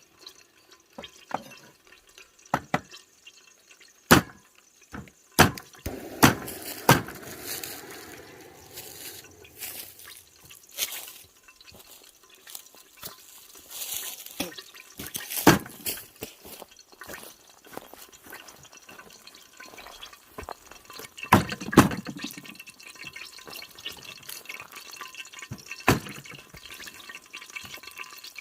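Water pouring and dripping, with scattered sharp knocks and clatters.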